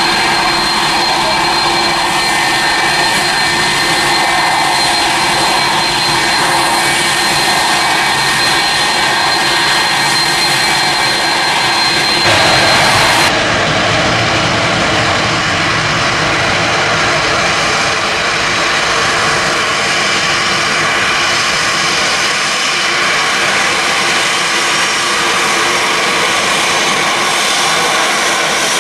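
Boeing 747 jet engines at takeoff power, a loud, steady jet noise with a high whine in it. About twelve seconds in, the sound changes abruptly to another 747's takeoff run, a steady rush without the whine.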